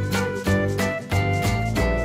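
Upbeat background music with a steady beat and plucked guitar-like notes.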